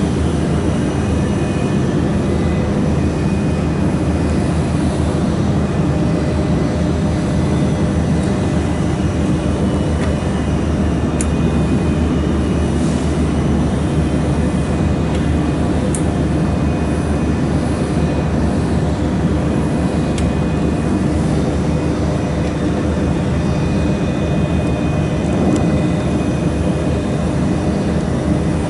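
Mould laser welding machine running with a steady, loud hum, with a few faint sharp ticks now and then.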